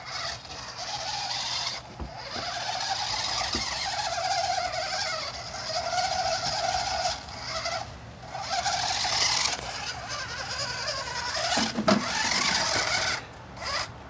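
Small electric motors of a battery-powered toy RC stunt car whining as it drives over snow, in stretches of a second or two that rise and fall in pitch with short pauses between. A sharp knock about twelve seconds in.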